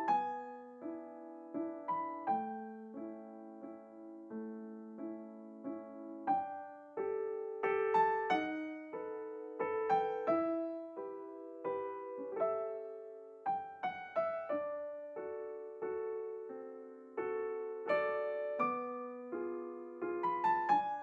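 Background solo piano music: a light, gentle piece of struck notes and chords that ring and fade.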